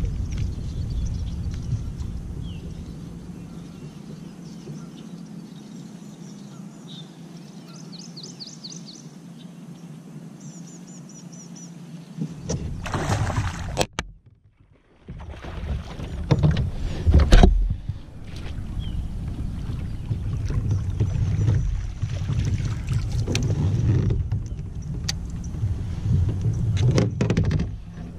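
Outdoor noise on a kayak-mounted GoPro's microphone: a steady low rumble with birds chirping faintly. About halfway through there is a brief drop to silence, then uneven low thumps, rustles and a few sharp knocks as a fish is reeled in and landed in a net from the kayak.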